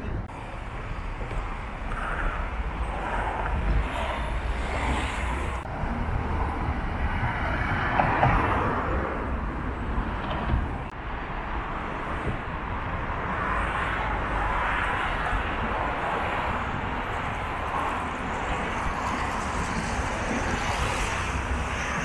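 Steady vehicle rumble with a strong low drone and noise that swells and eases in the middle range, the loudest swell about eight seconds in.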